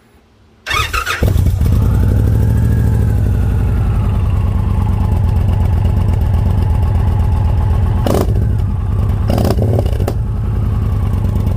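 2020 Indian Challenger's V-twin through a Bassani 2-into-1 exhaust, started with a brief crank under a second in and catching at once, then idling steadily. A few short sharp sounds land over the idle about eight to ten seconds in.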